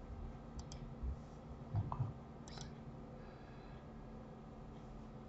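Computer mouse buttons clicking faintly, two quick double clicks about a second apart, over a low steady hum.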